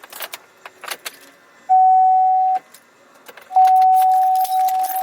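Keys jingling with light clicks, then a steady electronic beep at one pitch that sounds twice: first for under a second, then for about two and a half seconds.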